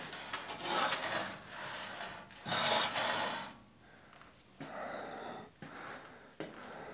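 Irregular rubbing and scraping as a small rubber-tyred wheel on an old Turfco topdresser is turned by hand on its axle. The longest, loudest scrape comes about three seconds in, followed by quieter short scrapes.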